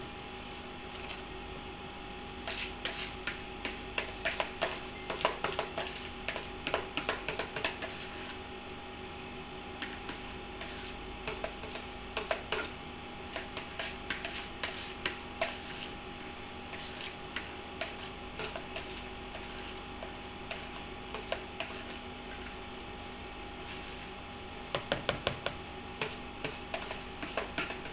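Spoon scraping and tapping against the inside of a plastic mixing bowl, clearing out leftover homemade ice cream mixture, in runs of rapid clicks with pauses between. A steady electrical hum runs underneath.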